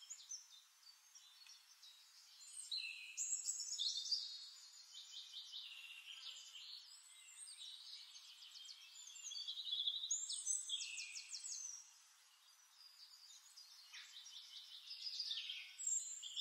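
Songbirds singing: quick trilled and chirping phrases coming in several bursts, with a short lull about twelve seconds in.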